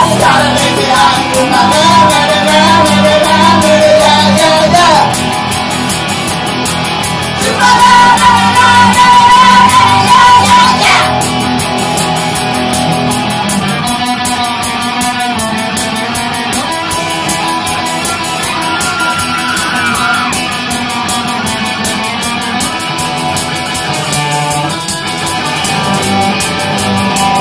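Loud live band music: a woman singing long held notes over electric guitar, ending in a downward slide about eleven seconds in, after which the guitar-led accompaniment carries on.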